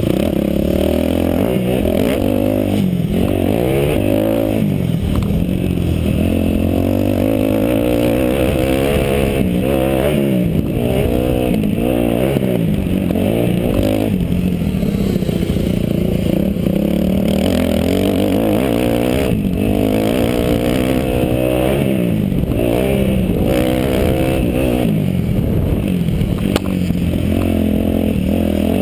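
Kawasaki KX250F motocross bike's single-cylinder four-stroke engine racing around a dirt track. Its pitch rises and falls again and again as the throttle is opened and closed and the gears change.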